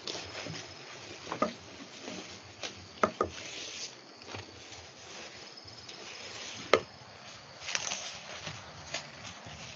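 Freshly cut ramie stalks and leaves rustling as gloved hands gather and handle them, with a few sharp clicks; the loudest click comes a little before a rustling burst near the end.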